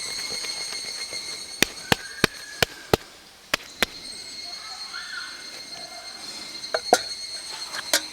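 A series of sharp knocks, about three a second for a second and a half, then a few more spaced out, over a steady high-pitched drone.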